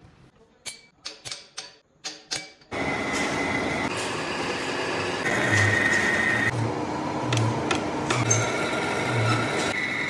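About six short scratches of a steel scriber marking lines on the metal pulley, then, starting suddenly about three seconds in, a vertical lathe cutting V-belt grooves into a large pulley: steady machining noise of the tool on the turning metal, with a high whine and a low pulse about once a second.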